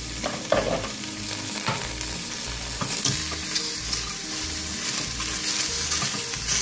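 Bone-in meat searing in a hot stainless steel pot, sizzling steadily, with a silicone spatula turning the pieces and knocking against the pot now and then.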